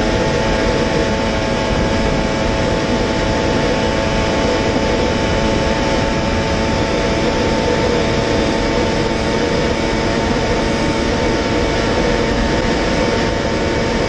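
Kawasaki Ninja H2's supercharged inline-four held at high revs in sixth gear at about 400 km/h, a steady unchanging engine note buried in heavy wind rush.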